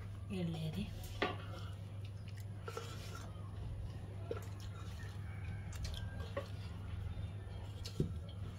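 A wooden spoon prodding and knocking against a black cooking pot as cooked rice is loosened and turned out, in scattered knocks and scrapes, the loudest a sharp knock about eight seconds in as the upturned pot is tapped. A steady low hum runs underneath.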